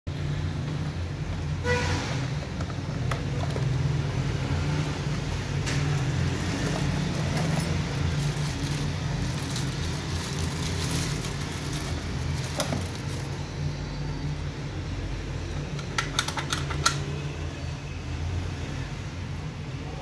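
A steady low hum underneath the unpacking of a rim lock: a cardboard box being opened and the lock pulled from its plastic bag, with crinkling, handling knocks, and a quick run of sharp clicks near the end.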